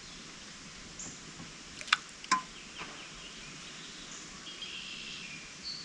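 Birds calling now and then over a steady outdoor hiss, with two sharp clicks about two seconds in.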